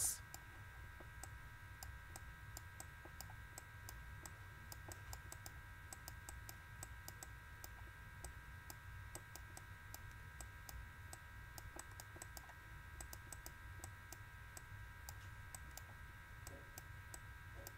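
Faint, irregular clicks and taps from handwriting being entered on a computer, over a steady faint electrical hum.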